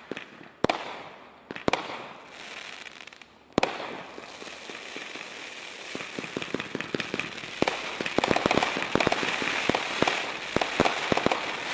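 500-gram fireworks cake firing: three sharp shots in the first four seconds, then a continuous hiss of rising gold tails with rapid crackling pops that grows denser and louder in the second half as the shots fire in quick succession.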